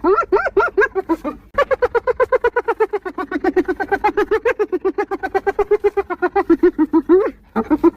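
Spotted hyena giggling: rapid, evenly pulsed laugh calls, a short bout followed after a brief break by a long bout of about six seconds that stops shortly before the end.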